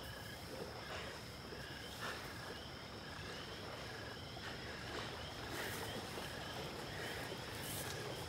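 Night-time insect chorus: a steady high drone with short chirps repeating about every half second, over a low rumble that builds near the end. A few soft footsteps fall in among it.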